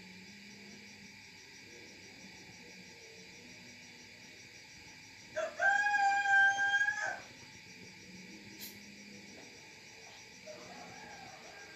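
A rooster crows once about halfway through, one loud call that rises and then holds for about a second and a half, over steady cricket chirping.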